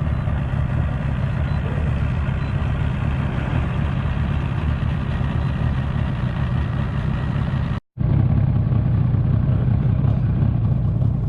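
An engine running steadily with a low, even rumble, broken by a brief cut near the end.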